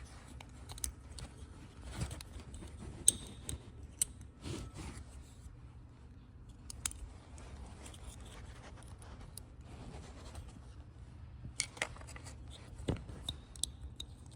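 Scattered light clicks and short scrapes of small metal parts being handled, as meter probes are worked onto a blower motor's terminals to measure its winding resistance. A steady low hum runs underneath.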